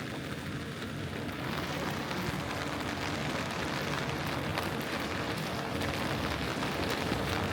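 Steady rain falling on a city street: an even hiss with a low rumble underneath, slowly growing a little louder.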